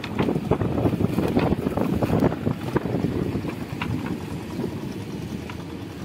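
Rustling and dense irregular tapping as a monofilament fishing net is hauled in over a plastic sheet in a wooden boat, with small fish flapping on the sheet, and wind buffeting the microphone. The tapping thins out after about two and a half seconds.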